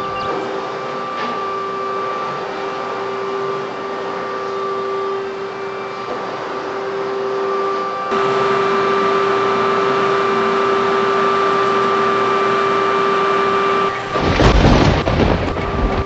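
Vacuum cleaner running with a steady motor whine, louder from about eight seconds in. About two seconds before the end a loud, deep thump and rumble breaks over it.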